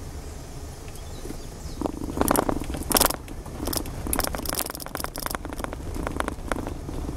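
Car driving over a rough road surface, heard from inside the cabin: a steady low rumble of engine and tyres, with irregular crackling and clattering rattles starting about two seconds in, loudest soon after.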